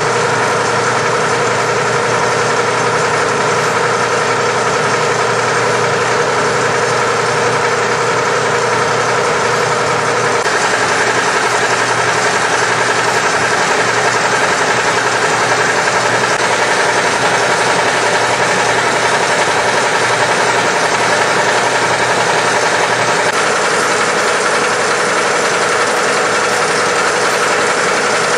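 Urschel Model J slicer-dicer with a 5 hp motor, running steadily with a loud, even mechanical hum and whir. Its tone shifts slightly about ten seconds in and again past twenty seconds.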